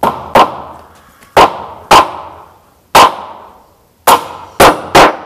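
Hammer driving nails into the joined wooden side planks of a boat's hull: eight sharp, loud strikes, loosely paired, each ringing briefly in the boards.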